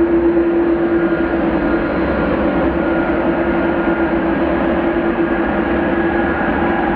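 Boeing 787-9 jet engines heard steadily as the airliner climbs away after takeoff: an even, continuous noise with a constant hum under it.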